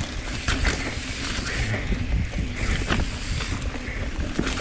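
Mountain bike riding down a rocky trail: wind buffeting the microphone over the rumble of tyres on rock, with a handful of sharp knocks and clatters as the bike hits bumps.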